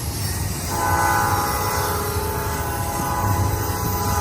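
Cast P5 five-chime locomotive horn sounding one long held chord, starting about a second in, over the low rumble of a passing freight train.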